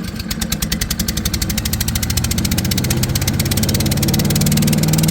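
Small gasoline engine of a chipper-shredder running just after a pull start, picking up speed and getting louder as it comes up to running speed.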